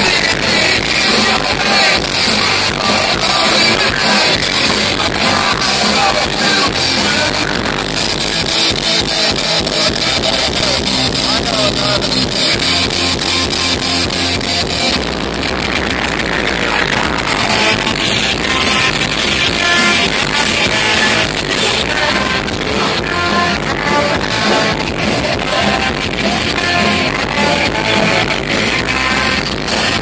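Punk rock band playing live over a festival PA: electric guitars, bass and drums with sung vocals, loud and dense.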